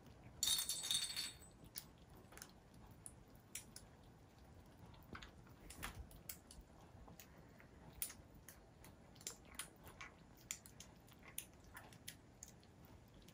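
Kittens eating from a plate: faint, irregular small clicks and smacks of chewing and of teeth on the plate. A louder burst of noise lasting about a second comes near the start.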